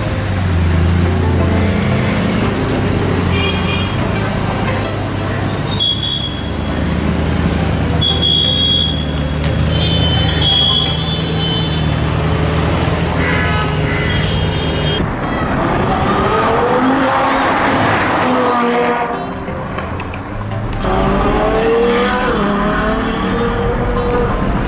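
Car engines running in street traffic, with an engine revving up in rising glides about two thirds of the way through.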